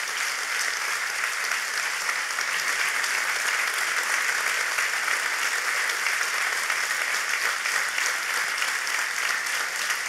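A large audience applauding steadily after a talk ends: dense, even clapping from many hands that holds at a constant level.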